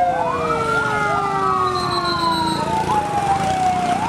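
Fire-truck siren wailing, with two overlapping tones sliding slowly up and down in pitch and a fresh rise near the end.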